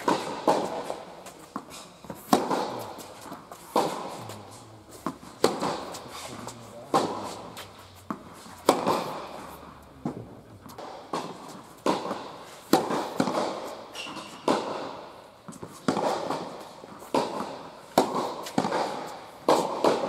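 Tennis balls struck by rackets and bouncing on an indoor hard court in a baseline rally: sharp pops about every one and a half seconds, each echoing in the large hall.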